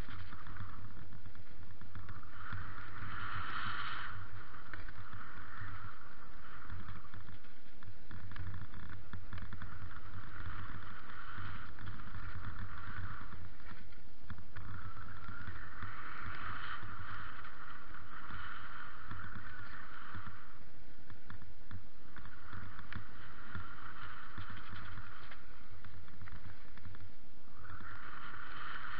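Mountain bike riding down a dirt and gravel trail, with wind rushing over the microphone and the tyres rumbling over the ground. It is a steady, rumbling noise with a hiss that swells and fades every few seconds.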